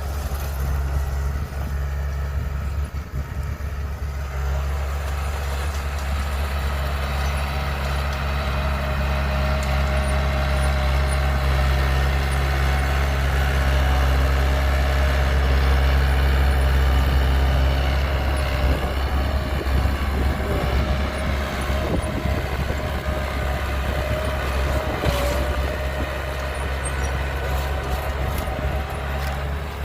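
Heavy diesel engine of earth-moving machinery running steadily, a deep drone that gets a little louder around the middle.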